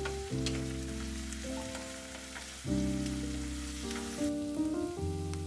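Minced onions sizzling as they fry in oil in a frying pan, with a few light taps of a wooden spatula stirring them. Background music of held chords changing about every second plays throughout.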